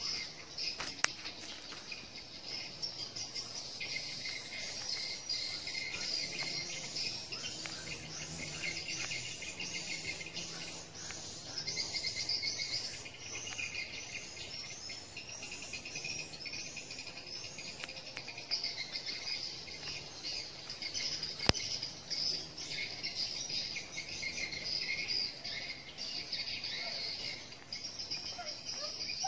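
Shrill insect chorus: a continuous, high-pitched chirring that pulses in rapid waves. Two sharp clicks cut through it, one about a second in and a louder one about two-thirds of the way through.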